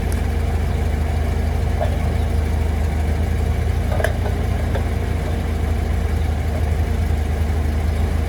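An engine idling steadily, with a few faint clicks about four seconds in.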